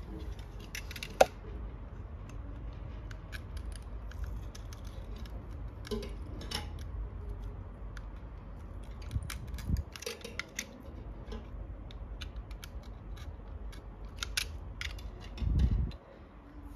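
Small metal clicks and scrapes as a coaxial TV plug and a utility knife are handled while a coax cable is being prepared. There is a sharp click about a second in and a dull bump near the end.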